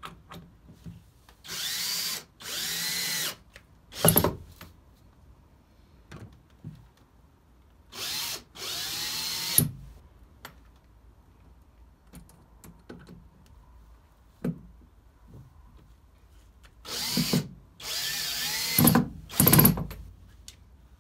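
DeWalt cordless drill/driver running in short bursts of a second or two as it works into a plywood panel, the motor whine rising and falling with each pull of the trigger. There are about six bursts in three groups, with a few short sharp knocks between them.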